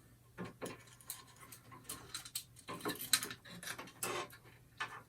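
A screwdriver working a small slot-cover screw in a PC's metal case: irregular light metallic clicks and scrapes, a dozen or more, some in quick clusters.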